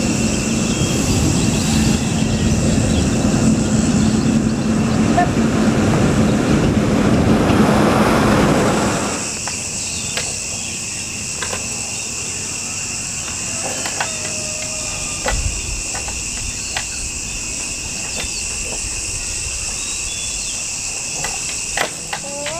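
A motor running for about the first nine seconds, a rumbling drone with a steady low hum, which then cuts off. Under it and after it, a steady high insect drone carries on, with a few short chirps and clicks.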